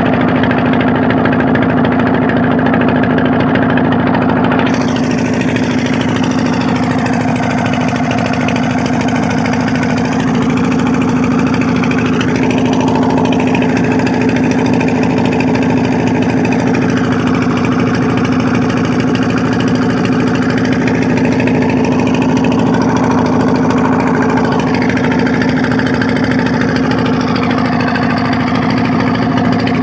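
An engine running steadily at a constant speed, loud and even throughout.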